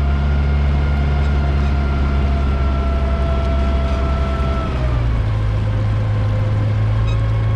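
Amphicar's four-cylinder engine running steadily while the car travels through the water as a boat. Its note drops about five seconds in as the engine eases off.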